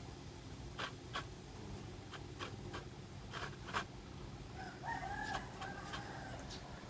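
A dog eating from its bowl, with a few sharp clicks and crunches over the first four seconds. About five seconds in, a rooster crows faintly, one call of about a second.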